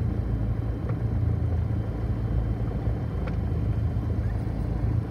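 Cessna 172R's four-cylinder Lycoming engine and propeller idling steadily on the ground: a low, even drone.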